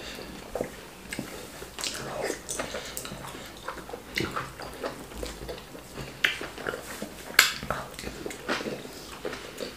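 Close-miked eating of wheat fufu with ogbono soup: chewing and mouth smacks in irregular short clicks, the loudest about seven and a half seconds in.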